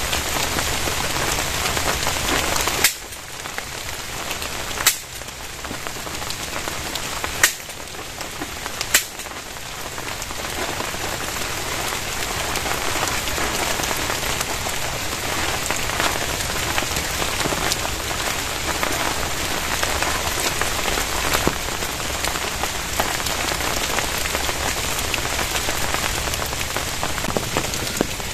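Heavy rain falling steadily, with four sharp clicks in the first ten seconds.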